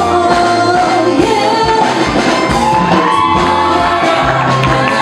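Upbeat band music with a voice singing a melody over drums and electric guitars.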